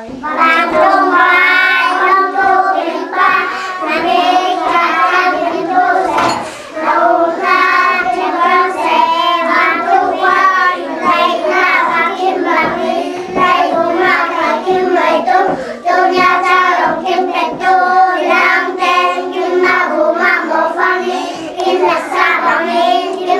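A group of young children singing a prayer together in unison, with a brief pause about six seconds in.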